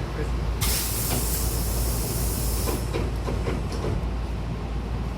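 Hankyu 7000-series train's passenger doors closing: a sudden hiss of air starts about half a second in and lasts about two seconds, then a few knocks as the doors shut, over a steady low rumble of the train.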